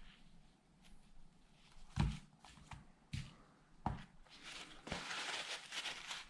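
A tablet being handled and cleaned after repair: a few light knocks as it is set down and moved, then a second or so of rubbing as its glass is wiped near the end.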